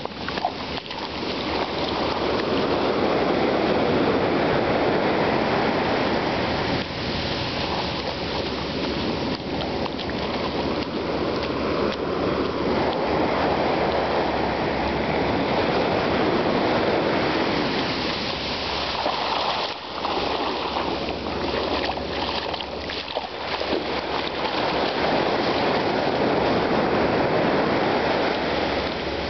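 Sea surf washing over sand in shallow water at the shoreline: a continuous rush of water that swells and eases as the waves come in and draw back.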